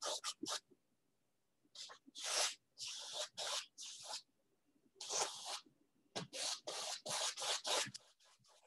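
Paintbrush rubbing oil paint onto a stretched canvas in short strokes. The strokes come in several quick runs with brief pauses between them.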